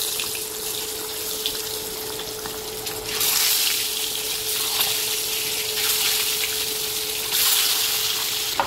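Boiled eggs sizzling and crackling in hot mustard oil in a kadai. The sizzle swells several times as more eggs are slid into the oil, over a faint steady tone.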